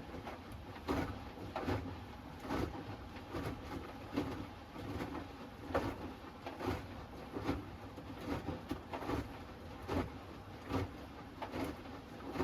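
Hoover Axi 10 kg front-loading washing machine on its wash tumble: wet laundry and water sloshing and dropping in the turning drum, a soft thud a little more than once a second.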